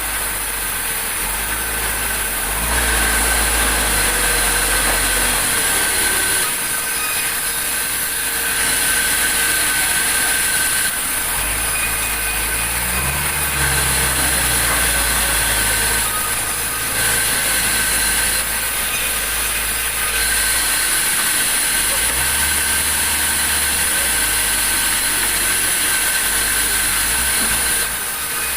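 Sawmill machinery running: a steady mechanical drone with a constant high whine, its low end stepping up and down abruptly every few seconds.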